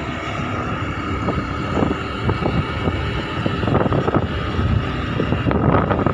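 A two-wheeler's engine running steadily while riding, with wind buffeting the microphone in irregular gusts that grow stronger in the second half.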